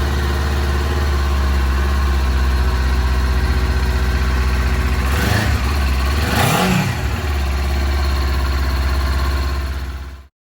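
Engine running at a steady idle, with a brief swell of noise that rises and falls about five to seven seconds in. The sound cuts off abruptly just before the end.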